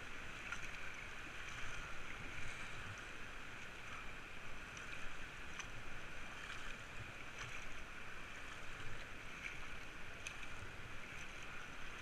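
Whitewater of a river rapid rushing steadily around an inflatable kayak, with scattered small splashes and drips from the paddle strokes.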